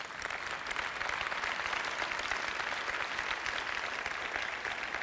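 Audience applauding in a large hall, a steady clatter of many hands that comes in sharply at the start.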